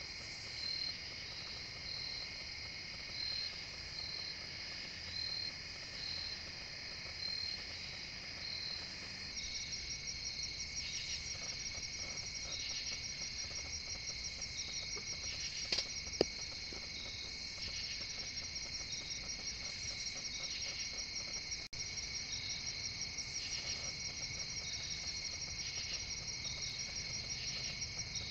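Night chorus of crickets and other insects: steady high-pitched trilling with a chirp about once a second, changing about a third of the way in to a denser, fast-pulsing trill. Two sharp clicks near the middle.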